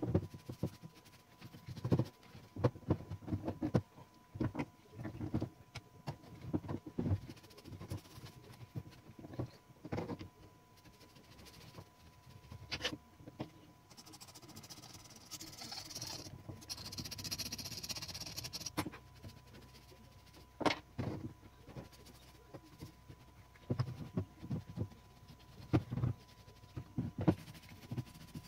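Intermittent clicks and knocks of metal typewriter parts being handled and worked on a bench, with a few seconds of hissing, scratchy noise around the middle. A faint steady whine runs underneath.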